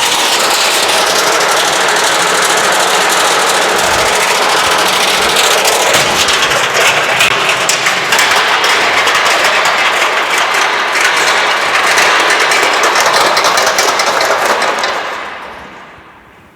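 Haier washing machine running with its stainless steel tub mounted on welded car suspension springs, the tub rattling and banging rapidly inside the cabinet in a loud, steady racket that dies away near the end.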